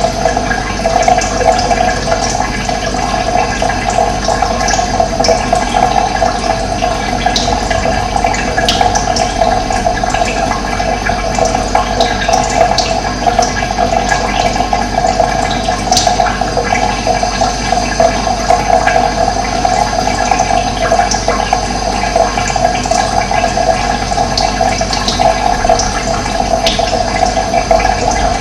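Steady rushing of running water, with scattered faint high ticks over it.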